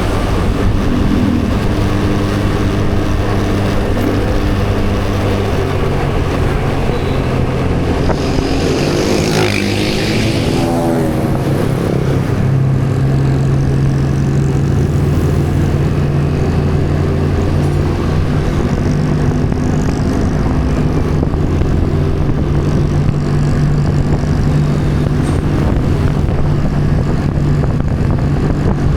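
A vehicle engine runs steadily with road and wind noise, from the POV of someone travelling on the road. About eight to eleven seconds in, another vehicle goes by, rising and falling in pitch as it passes.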